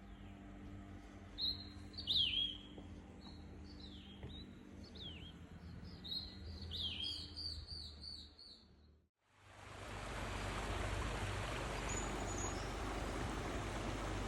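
Wild birds chirping and calling in short sharp notes that sweep downward, with a quick run of repeated chirps near the middle, over a faint low hum. About nine seconds in the sound cuts out and gives way to a steady, louder rushing noise, with one brief high bird note over it.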